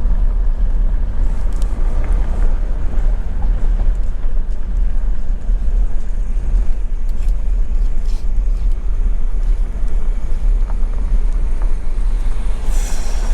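Tractor-trailer's diesel engine and road noise heard from inside the cab: a steady, heavy low rumble, with a brief hiss near the end.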